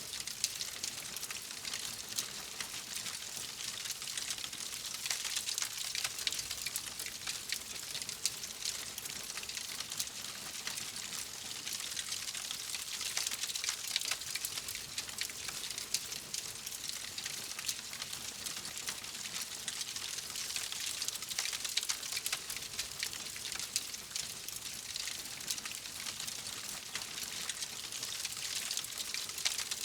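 Wood fire crackling steadily, a dense stream of small pops and snaps over a soft hiss.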